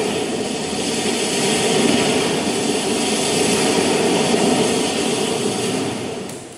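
Steady roar of a jet airliner's engines, played as a recorded sound effect; it fades out near the end.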